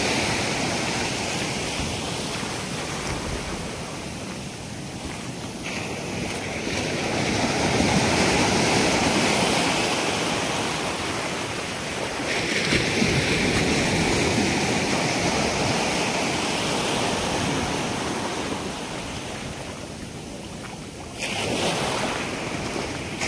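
Sea surf breaking and washing over the shallows, a steady rush that swells and fades in slow surges, with a sudden louder surge near the end.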